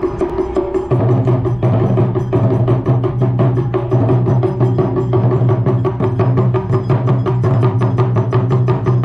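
Japanese taiko drums played by an ensemble: a fast, even rhythm of stick strikes, with a steady low drum tone coming in about a second in.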